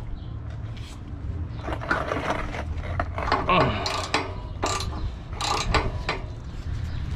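Hand ratchet wrench with a 14 mm socket clicking in short, irregular runs as a bolt is worked loose.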